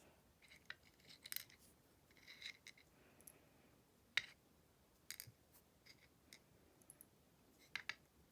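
Faint, scattered clicks and light metallic clinks of small padlock pins being handled, with one sharper click about four seconds in.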